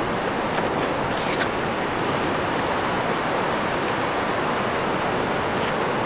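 Strong wind off the winter sea mixed with surf: a steady rushing noise with no let-up, with a few short clicks about a second in and again near the end.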